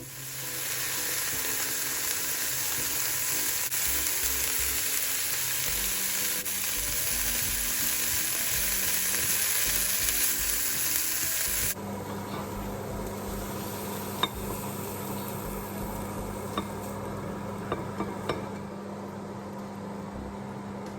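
Food sizzling as it fries in a pan, a loud, even hiss. About twelve seconds in it cuts abruptly to a quieter stretch with a few light clicks.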